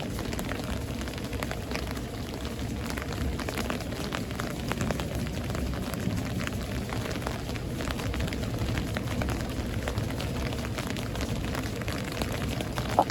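Steady thunderstorm rain, with many single drops landing close by as sharp ticks over an even rush. One louder click comes just before the end.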